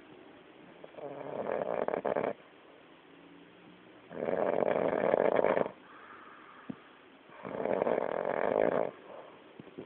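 Loud snoring: three long snores about three seconds apart, each lasting about a second and a half, with quiet breathing between.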